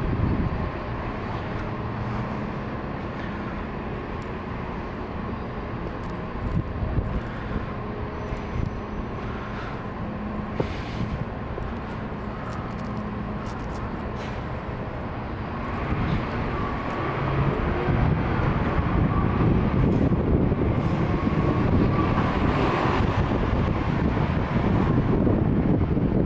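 Outdoor street ambience with vehicle traffic: a steady low hum of engines and road noise, growing louder and rougher about two-thirds of the way through.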